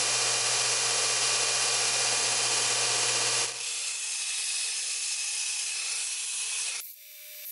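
Bench belt sander running with a steady hiss and low motor hum, a steel axe head being ground on the belt. About three and a half seconds in, the sound changes abruptly: the hum drops out and a thinner hiss of grinding goes on.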